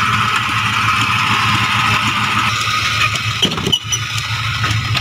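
1997 Suzuki Carry (Carreta) engine idling steadily and smoothly, with a couple of knocks about three and a half seconds in.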